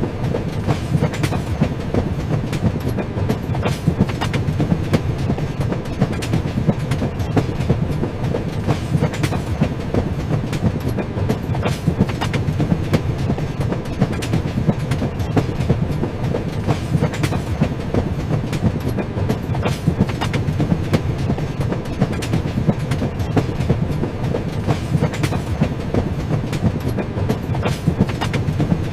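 Train wheels running over the rails: a steady low rumble with a continual clickety-clack of clicks from the track.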